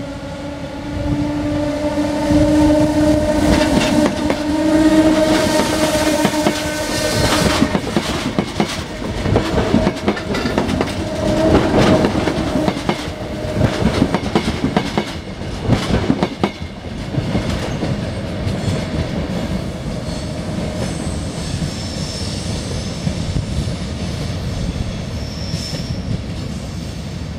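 ÖBB class 4020 electric multiple unit pulling away, its whine rising slowly as it gathers speed. As it passes, a run of wheel clicks over the rail joints follows, and the sound then fades to a low rumble as the train draws away.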